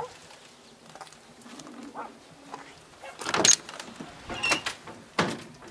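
Metal storage compartment door on an ambulance body being swung shut and latched: three sharp clanks, the loudest about three and a half seconds in.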